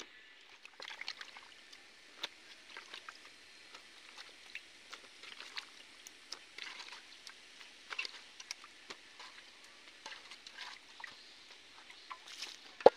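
Soft wet squelches and small clicks of raw chicken pieces being handled and lifted out of a metal bowl, with one sharp knock near the end.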